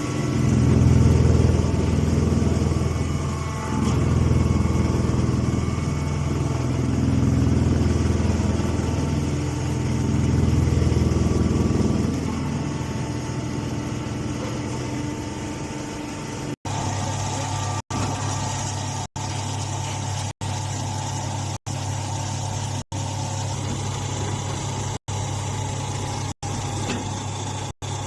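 Hay baler machine running with a loud, low motor hum. For about the first twelve seconds the hum swells and eases in waves a few seconds apart; after that it settles to a steadier hum, broken by brief silent cut-outs about once a second.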